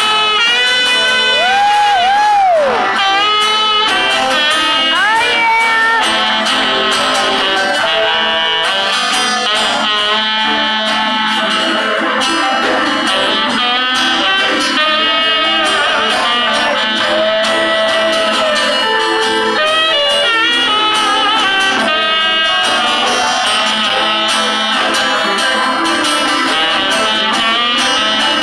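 Live rock band playing an instrumental passage, led by electric guitars and saxophone over acoustic guitar strumming. A few notes are bent in pitch about two and five seconds in.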